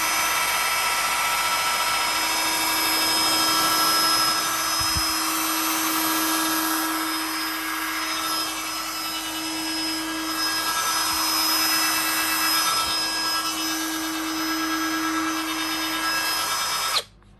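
Ryobi One+ HP 18V brushless compact cut-off tool (PSBCS02B) running free with no load, a steady high-pitched motor whine that holds its pitch and cuts off suddenly near the end.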